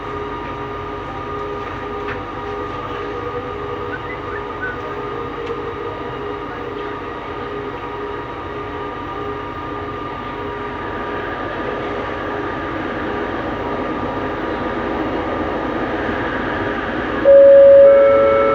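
Interior running noise of a Bombardier Innovia Metro 300 linear-induction-motor metro train under way: a steady rumble with several constant electric whines, growing a little louder in the second half. Near the end, a much louder steady tone comes in suddenly and lasts about a second.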